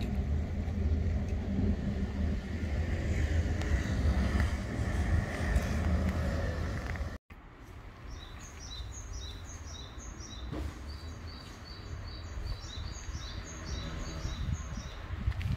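A steady low rumble that breaks off abruptly about seven seconds in. After it, quieter outdoor air with a bird chirping, rapid runs of short high notes.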